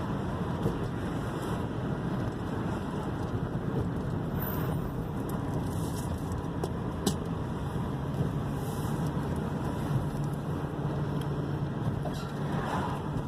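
Steady engine and road noise heard inside the cabin of a 2001 Toyota Corolla on the move, with a single light click about seven seconds in.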